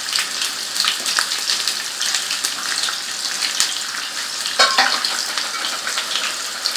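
Freshly added sliced onions frying in hot oil in a non-stick frying pan: a steady sizzling hiss full of small crackles and pops. About two-thirds of the way through there is one short, louder rasp.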